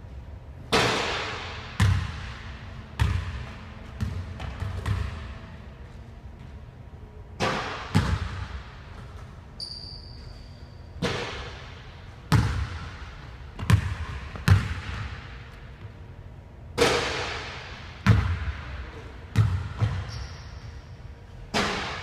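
A basketball bouncing on a hardwood gym floor, in loose clusters of sharp, echoing thuds every second or so. There are a couple of brief high squeaks, one around the middle and one near the end.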